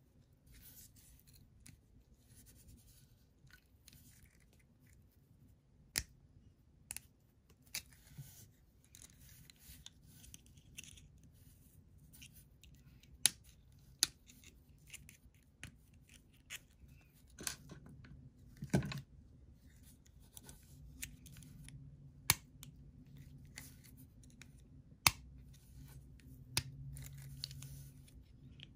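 Round-nose pliers working thin wire through a plastic bottle cap: faint scratching and handling, with a dozen or so sharp metal clicks scattered through.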